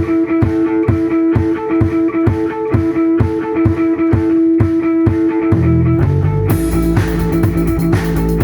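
Rock music: guitar holding a ringing note over a steady drum beat of about two to three strokes a second. A deep bass and a crash cymbal join about six seconds in as the full band comes in.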